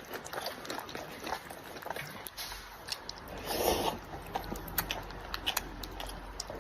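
Kitten eating, its chewing and biting making rapid small clicks and crunches, with one louder, noisier sound about three and a half seconds in.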